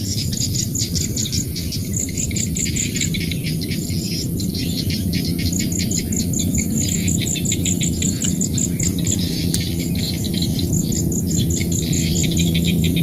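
Rice-field ambience: insects, grasshoppers or crickets, chirping in rapid trains of pulses, with some bird calls, over a low steady drone.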